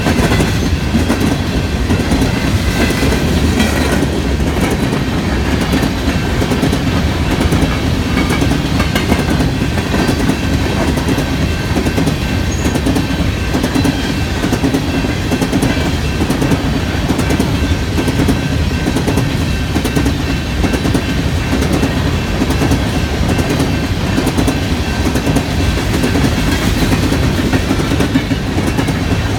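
An empty coal train's hopper cars rolling steadily past, with continuous wheel-on-rail rumble and clickety-clack over the rail joints.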